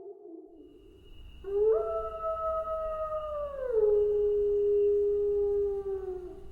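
Wolf howling: the end of one howl fades out, then a long howl rises, holds, drops to a lower pitch about halfway through and holds there before tailing off near the end.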